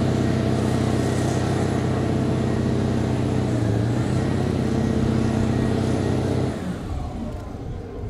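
A fire truck's engine and pump run steadily at high revs, driving a water-cannon spray, then cut off abruptly about six and a half seconds in as the spray ends.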